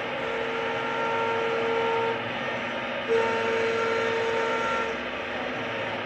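CNC woodworking router running: steady machine noise with a high whine that holds for about two seconds, breaks off, and comes back for another two seconds about three seconds in.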